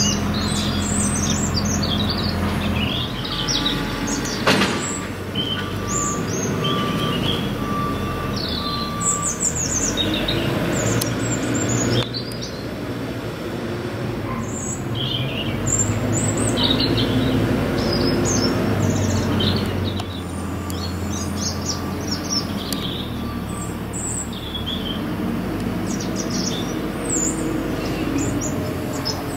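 Small birds chirping and twittering over a steady low background hum.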